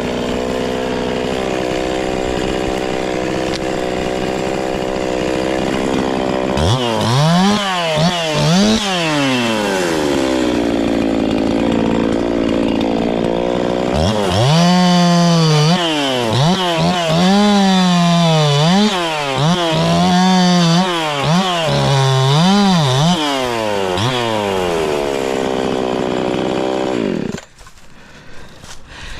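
Two-stroke chainsaw idling, then revved up and down in repeated bursts as it cuts cedar. It drops back to idle and shuts off near the end.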